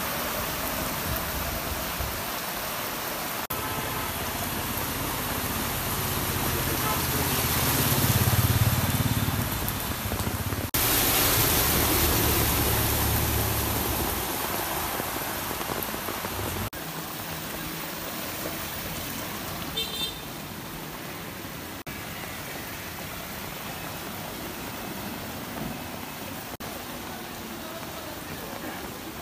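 Rain and motor vehicles driving through flooded street water: an engine rumble with a rush of splashing water, loudest from about eight to fourteen seconds in. A short high-pitched signal sounds about twenty seconds in, over a steady hiss of rain and water.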